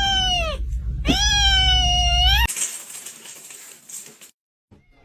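A cat giving long, drawn-out meows, each gliding slightly down in pitch: one ends about half a second in, and a second runs from about one second to two and a half seconds. It then cuts off abruptly, leaving a faint hiss.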